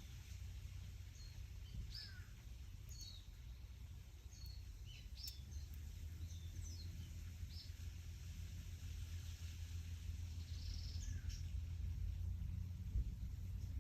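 Wind buffeting the microphone as a steady low rumble, with leaves rustling, and scattered short bird chirps and whistles, busiest in the first half and again near the end.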